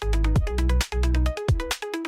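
Electronic dance background music: a fast, even beat of sharp percussive hits over a pulsing bass, with a short repeating synth melody.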